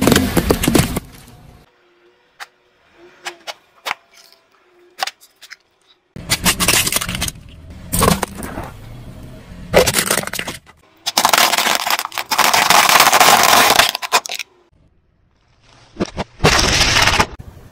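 A car tyre rolling over and crushing objects one after another: sharp cracks and crunches, a drinks can bursting and spraying, and plastic snack bags splitting open.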